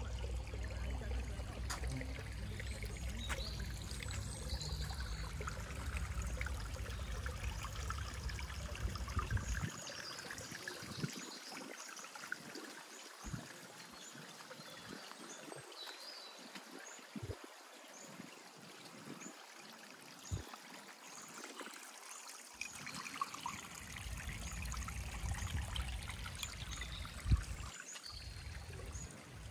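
Water trickling and splashing steadily in a small garden stream.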